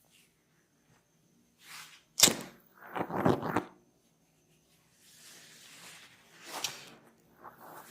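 Massage handwork on skin and hair: a soft whoosh, then a sharp smack about two seconds in, followed by about a second of crackly rubbing and patting. Softer whooshes and more crackling come later.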